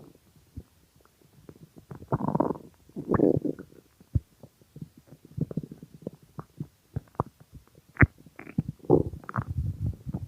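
Hungry human stomach growling: bubbly gurgles about two and three seconds in, scattered small pops and clicks through the middle, and more gurgles near the end.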